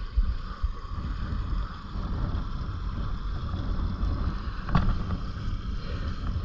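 Creek water running steadily, with a single sharp click a little before the end.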